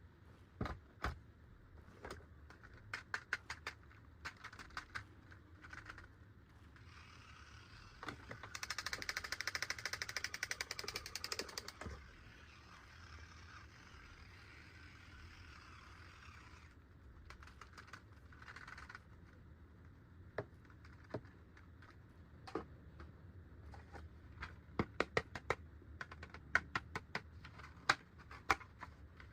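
Hard plastic toy parts and packaging being handled: scattered clicks and taps, with a stretch of rustling that is loudest about 8 to 12 seconds in, and a quicker run of clicks near the end.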